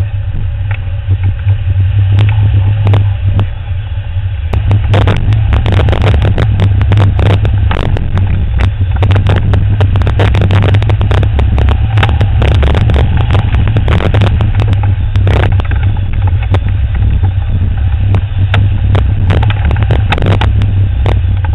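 Wind rushing over the wing-mounted camera's microphone as a tandem hang glider flies: a loud, steady low rumble with frequent crackling pops. It grows louder a few seconds in.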